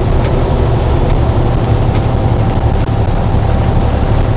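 Steady low rumble inside a truck cab: engine and road drone heard from the seat, with a couple of faint ticks.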